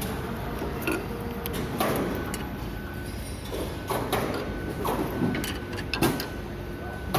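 Assembly-floor noise of a heavy-equipment factory: a steady machinery hum with scattered metal clanks and knocks, and a thin steady tone that comes and goes.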